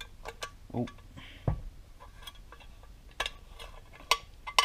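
Small metal clicks and taps as a motorcycle-style clutch release shaft and arm are handled in an aluminium ATV clutch cover, scattered and irregular, with a dull thump about a second and a half in.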